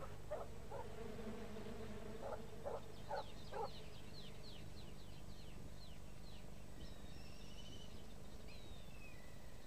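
Faint field ambience with birds calling: a quick run of short falling chirps from about three seconds in, a few lower calls in the first few seconds, over a low steady hum.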